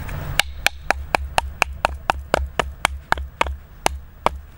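Batoning: a wooden stick striking the spine of a fixed-blade knife, driving it through a piece of hard, resinous wood. It makes a quick, even series of sharp knocks, about four a second, stopping shortly before the end.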